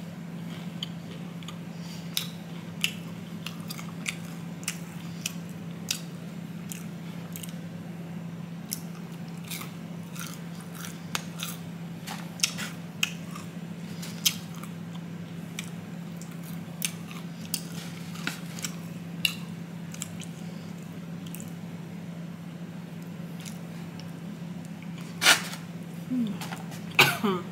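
Close-up chewing and biting of crispy breaded fried chicken tenders: scattered short crunches and wet mouth clicks, a few louder ones near the end, over a steady low hum.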